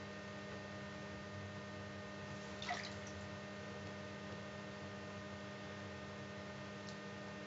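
Bath water lapping faintly as hands and a bearded dragon move in a shallow tub, with one small splash about three seconds in, over a steady low hum.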